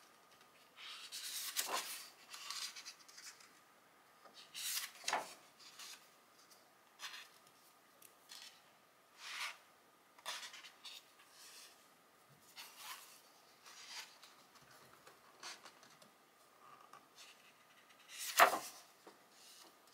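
Pages of a hardcover photobook turned by hand: short rustling swishes of paper every few seconds, with the loudest page flap near the end.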